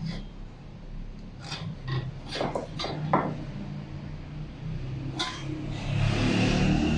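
Hand woodworking: a few sharp knocks and clinks of tools on wood, then a scraping, rasping stroke near the end.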